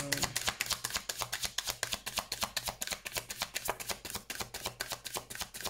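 Deck of oracle cards being shuffled by hand: a quick, even run of card clicks, about ten a second.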